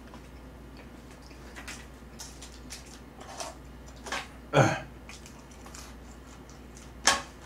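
Eating sounds: chewing and metal tongs clicking against a plate while picking up food, with scattered small clicks, a louder clatter about four and a half seconds in and a sharp clink near the end.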